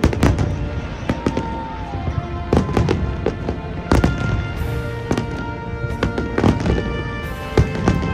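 Aerial fireworks bursting, a rapid run of sharp bangs and crackles one after another, with music playing underneath.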